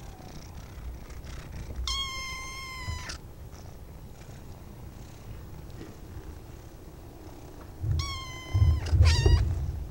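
Tabby kitten meowing: one long, level mew about two seconds in, then two shorter mews near the end, the last bending in pitch. A low rumble runs underneath and swells with the final mews.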